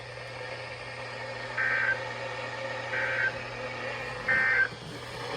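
Emergency Alert System end-of-message code: three short bursts of SAME digital data tones, a fast two-tone warble, each about a third of a second long and a little over a second apart, over a steady low hum. The bursts signal that the alert message has ended.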